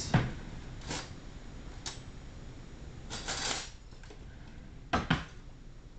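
Cutlery clinking and scraping on a plate: a few separate taps, a short scrape about three seconds in, and two quick clicks near the end.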